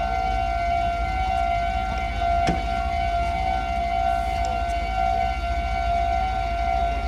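Railway level-crossing warning alarm at a Meitetsu crossing, sounding on and on as a steady, high electronic ringing tone, the signal that the barriers are down for a train. A single sharp knock comes about two and a half seconds in, over a low rumble.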